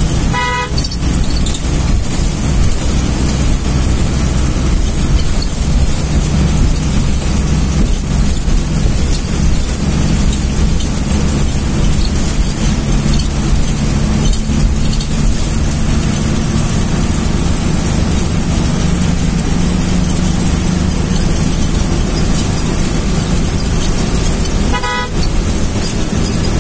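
Bus engine running and road noise heard from inside the cabin as it drives, with a short horn toot about half a second in and another near the end.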